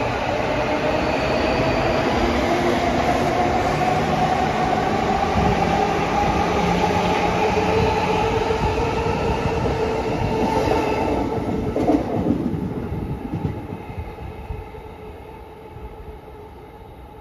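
JR East E235-series Yamanote Line electric train pulling away from the platform: the whine of its traction motors rises steadily in pitch as it accelerates, over the rumble and clatter of the wheels on the rails. The sound fades away from about twelve seconds in as the last cars leave.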